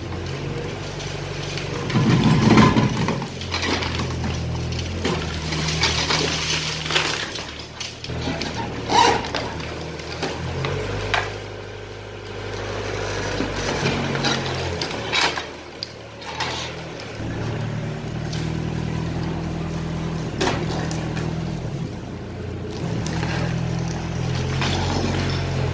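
A hydraulic excavator's diesel engine running steadily, its pitch shifting as the hydraulics take load. Over it, concrete rubble cracks, crunches and falls in scattered clatters; the heaviest crash comes about two seconds in.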